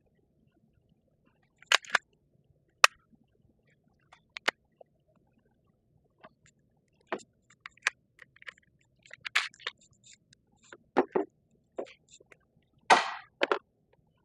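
Scattered clicks, snaps and short scrapes of a Glock G44 .22 LR pistol being taken apart by hand to clear a spent case stuck in its chamber. The sharpest click comes about three seconds in, and a longer scrape or rattle comes near the end.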